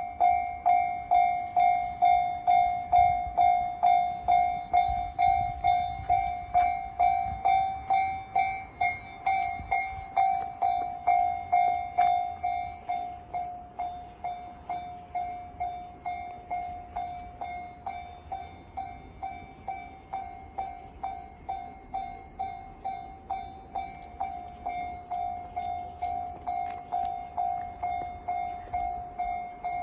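Japanese level-crossing warning bell starting suddenly and ringing on one pitch at an even pace of about two strikes a second. The strikes grow somewhat fainter about halfway through.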